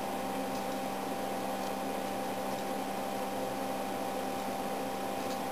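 Steady whir of bench test-equipment cooling fans, with a constant whine on top.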